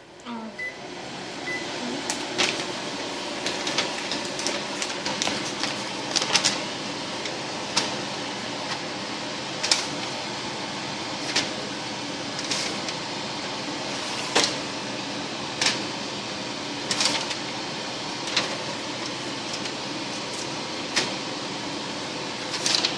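Microwave oven starting with a few faint beeps, then running with a steady hum. Sharp pops or snaps break in every second or two.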